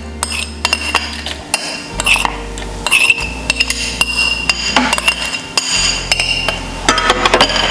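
A spoon scraping and clinking against a bowl and a stainless-steel mixer-grinder jar as dried red chillies and grated lemon peel are tipped into the jar. The clinks come irregularly throughout, some of them ringing briefly.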